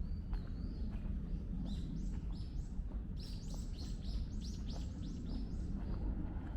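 A songbird calling in short, sharp downward chirps, a few at first and then a quick run of about eight about three seconds in, over a steady low outdoor rumble.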